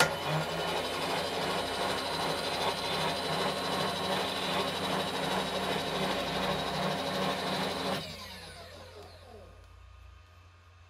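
A milling machine spindle starts abruptly and runs steadily, turning a valve seat cutter on a cast-iron A-series cylinder head. About eight seconds in it is switched off and winds down, its pitch falling away.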